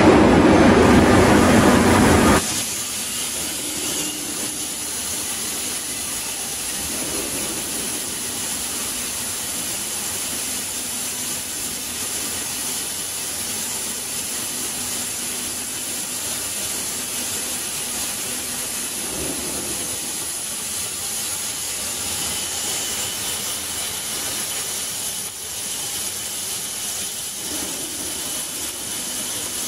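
CNC cutting torch of a Microstep CombiCut plasma and oxy-fuel cutting machine. It is loud at first and cuts off abruptly about two and a half seconds in, leaving a steady high gas hiss.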